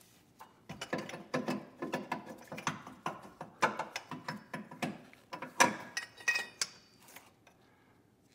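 Rapid, irregular clicks, clunks and scrapes of metal as the old water pump is wiggled and worked out of its mounting in a 2006 Mazda 3's 2.3-litre engine; the rattling stops about a second before the end.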